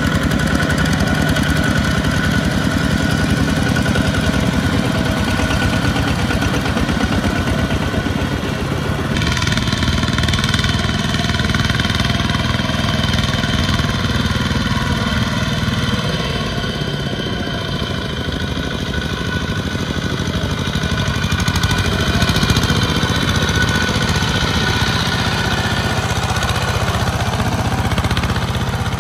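Single-cylinder diesel engines of two-wheel walking tractors running steadily under load as they haul trailers through deep rice-field mud, with a fast, even chugging. The sound changes about nine seconds in.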